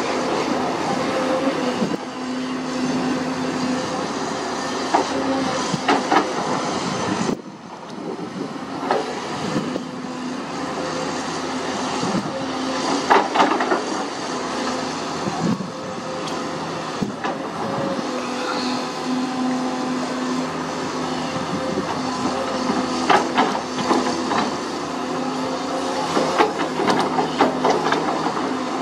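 Sunward SWE210 crawler excavator's diesel engine running steadily as it digs soil, with scattered sharp clanks and knocks from the working bucket and arm. The sound drops briefly about seven seconds in.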